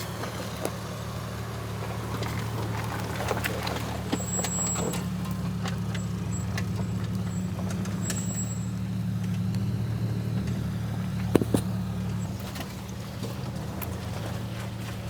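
Toyota All-Trac engine running at low revs while crawling over a rocky trail, with scattered knocks and rattles from the car, the loudest about 11 seconds in.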